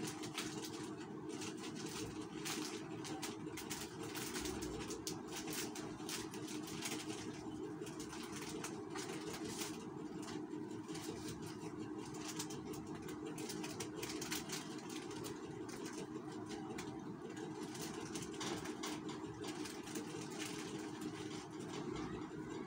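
Crinkling and clicking of plastic sachet strips being handled and hung on the wall, over a steady low hum.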